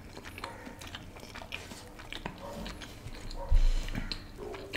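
Close-miked eating: flatbread with curry being bitten and chewed, a scatter of small wet mouth clicks. A dull thump about three and a half seconds in is the loudest sound.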